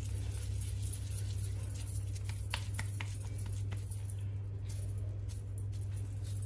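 Wet hands patting and pressing soft kabab mince into a patty over a steady low hum, with a few light clinks of gold bangles about two and a half seconds in.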